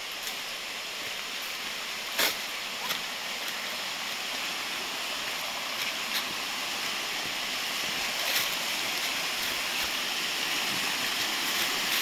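Steady rush of a small waterfall and rocky stream, growing gradually louder toward the end, with a sharp click about two seconds in.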